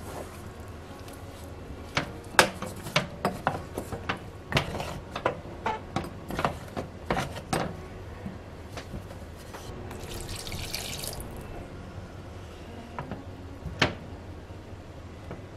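Kitchen work sounds: a run of sharp, irregular clicks and knocks of utensils and dishes, then a short splash of running water about ten seconds in and one more knock near the end.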